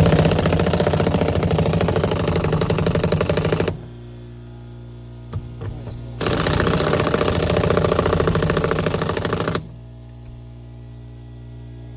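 Pneumatic impact wrench set to low speed, hammering in two bursts of about three seconds each as it drives seat-belt anchor bolts home, with a steady low hum between the bursts.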